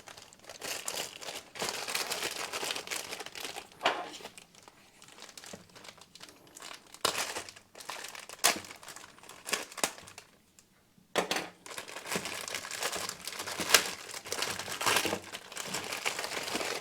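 Packaging crinkling and rustling as it is handled and unwrapped, in spells with sharp crackles and a short pause about two-thirds of the way in.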